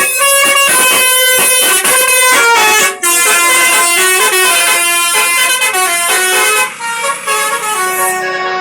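Basuri 'telolet' multi-tone bus air horn playing a loud melody, its tones stepping from note to note, with a brief break about three seconds in.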